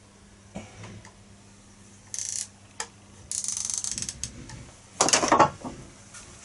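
Sight adjuster on a homemade catapult rifle being turned, giving a fast run of ratcheting clicks as the aim is moved to the left. A short hiss comes before it and a louder noisy rustle follows about five seconds in.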